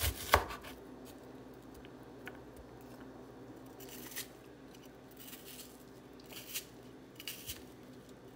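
Knife chopping onion on a bamboo cutting board: two sharp knocks right at the start, then scattered light cuts and taps.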